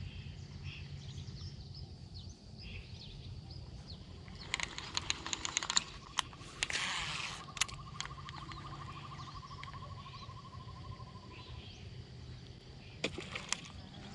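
Fishing reel whirring for about five seconds as a steady whine that sags slightly in pitch, after a quick run of clicks and a short swish; birds chirp faintly in the background.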